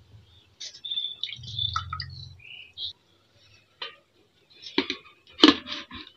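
Wet wild black mushrooms handled in a steel bowl: scattered clicks, knocks and rustles, the loudest about five and a half seconds in, with a few short high chirps in the first half.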